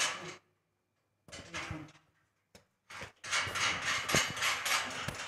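Metal clattering and knocking from work on a steel rolling shutter's top drum and bracket assembly, with a few sharp knocks in the second half. The sound cuts out twice for about a second in the first half.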